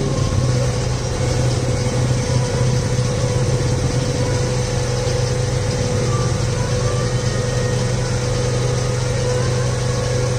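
A motor running steadily at constant speed: a low hum with a fainter steady tone above it, unchanging throughout.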